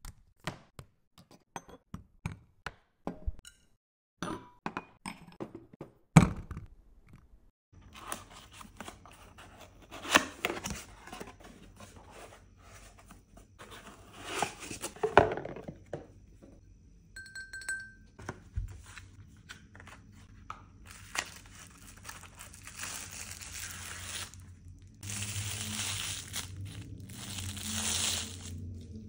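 Handling sounds: a quick run of small clicks and knocks ending in one loud thunk about six seconds in. Then a cardboard box is opened with paper rustling, and near the end a long bar spoon is pulled out of a crinkling plastic sleeve.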